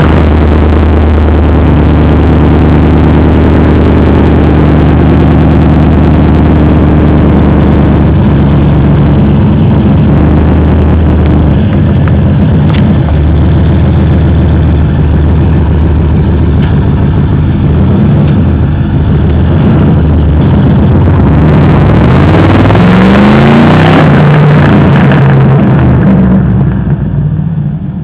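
Procharger-supercharged LS V8 engine firing up and running loud at a lumpy idle, blipped a few times near the end with the pitch rising and falling, then dropping in level just before the end.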